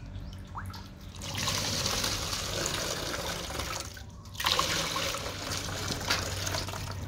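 Rice water pouring and splashing as a glass mug is dipped into a steel basin and emptied through a plastic funnel into plastic bottles. The running-water sound breaks off briefly about four seconds in, then resumes.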